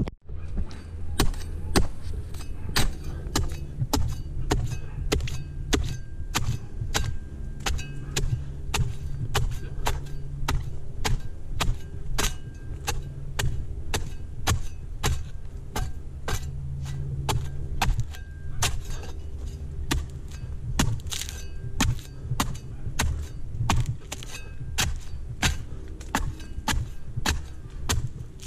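Repeated sharp chopping strikes of a palm-pruning blade against palm fronds, about two a second and unevenly spaced, over a steady low hum.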